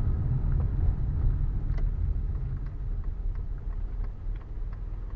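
Cabin noise of a BMW E34 on the move: a steady low engine and road rumble with a few faint ticks, easing off near the end.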